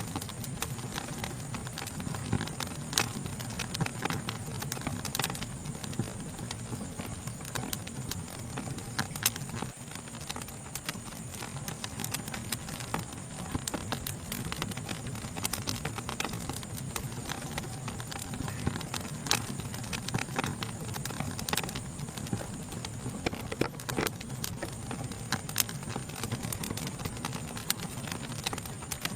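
Wood fire crackling, with irregular sharp pops and snaps over a low steady rumble of burning, and a steady high-pitched insect chorus behind it.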